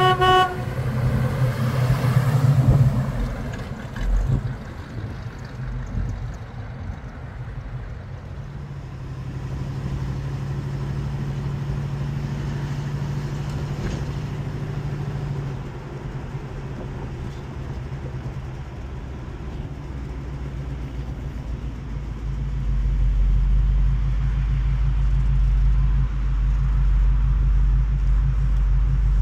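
1979 Chevrolet Malibu's engine running as the car is driven, much of it heard from inside the cabin. The engine grows louder and deeper in the last several seconds. A brief beep opens the sound.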